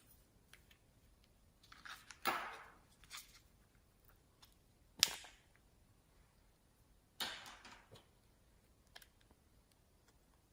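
Slime being squished and handled: three short, faint sticky crackles about two, five and seven seconds in, with a few small clicks between them.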